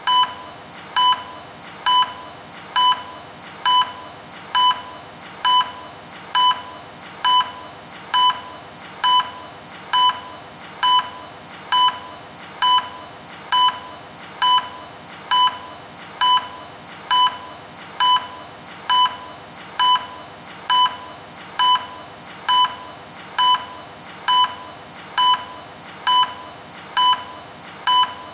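Electronic beeping: one short, high beep a little under once a second, repeating steadily without a break, over a faint steady hiss.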